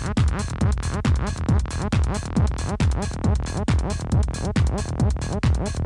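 Techno from a DJ set: a steady, deep kick drum on every beat, a little over two a second, with quick ticks in the highs over it.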